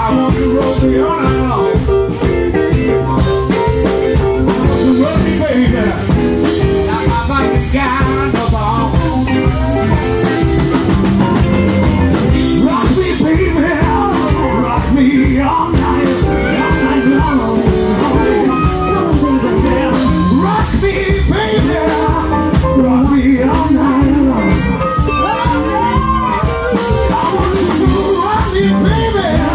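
Live blues band playing: electric guitars, bass guitar and drum kit, with a singing voice over them.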